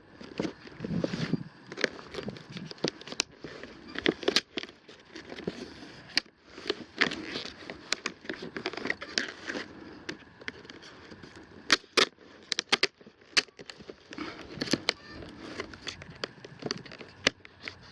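Utility knife cutting open the packaging on the back of a tool case, with crackling and scattered sharp clicks throughout as the wrapping is cut and handled.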